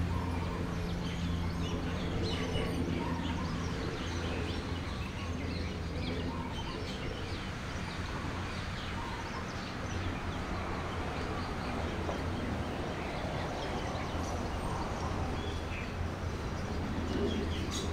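Outdoor park ambience: many small birds chirping and calling over a steady background hum. A low engine hum fades out over the first few seconds.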